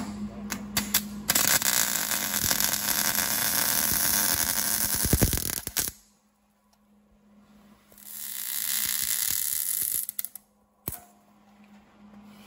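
A power tool running in two bursts, about four seconds and then about two seconds, with a few sharp clicks just before the first.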